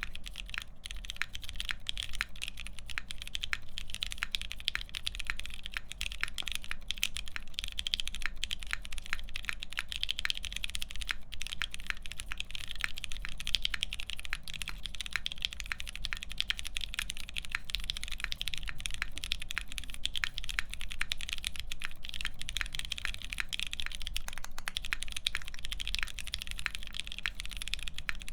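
Continuous fast typing on a custom mechanical keyboard with lubed Pewter switches on a half FR-4 plate and Hammerworks CRP PBT keycaps: a dense, even run of key clacks.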